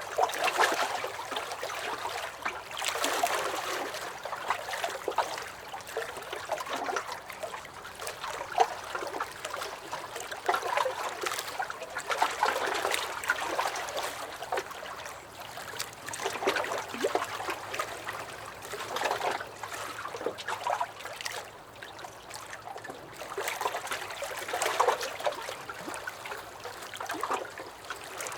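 Small lake waves lapping and splashing against a dock, in uneven swells every few seconds with little sloshes and drips.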